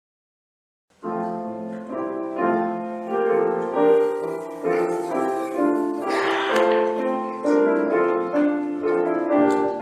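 Piano playing a slow passage of chords, starting about a second in after a moment of dead silence.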